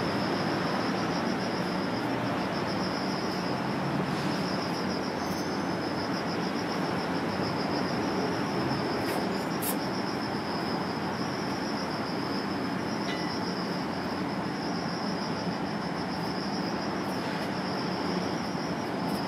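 An insect chirring steadily with a fast, high-pitched pulsing trill over a continuous hiss-like background.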